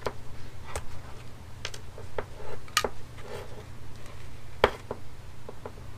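Insulated multi-function electrician's pliers clicking and snipping as insulation is trimmed from the ends of cable cores: several sharp, irregular clicks, the loudest a little before five seconds in.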